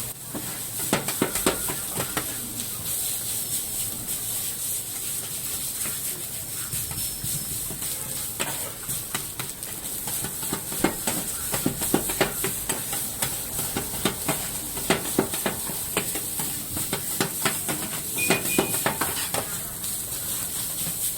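Fried rice sizzling on a hot iron griddle with a steady high hiss, while a metal spatula repeatedly knocks and scrapes against the plate in irregular strokes.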